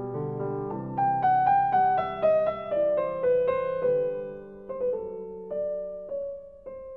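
Background solo piano music: single struck notes ringing and fading, with a melody that steps downward note by note between about one and four seconds in.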